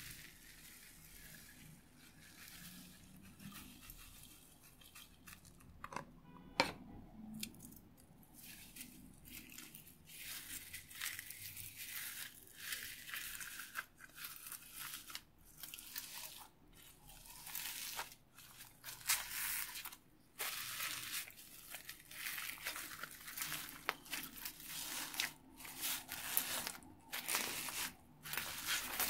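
Polystyrene foam beads crunching and crackling as hands knead them into white slime, in irregular bursts with short pauses. The first part is quieter, with a few light clicks; the crunching grows louder and busier after about ten seconds.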